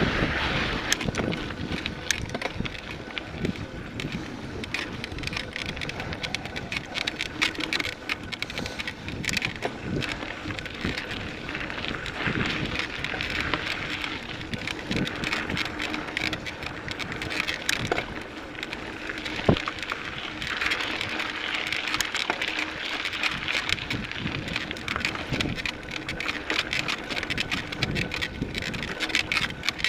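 Mountain bike riding over a dirt and gravel trail: steady tyre noise on the ground, with frequent small clicks and rattles from the bike as it bumps along.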